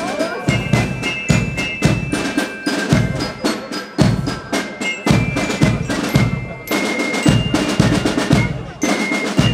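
A Spielmannszug (fife and drum corps) playing a march. High fifes play held notes over snare drum rolls, with a lyre glockenspiel and a bass drum keeping a steady beat about twice a second.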